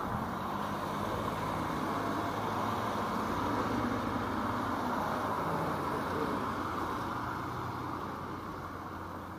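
A car driving past on a wet road: a low engine hum under the hiss of tyres on wet asphalt, growing louder to a peak about four seconds in, then fading away.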